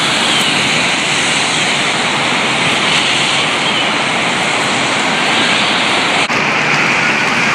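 Steady, loud hiss of rain falling on wet streets and pavement.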